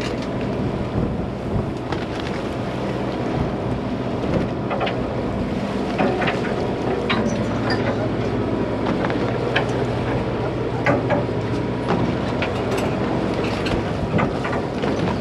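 A party boat's motor hums steadily, with wind buffeting the microphone. Scattered short clicks and knocks sound throughout.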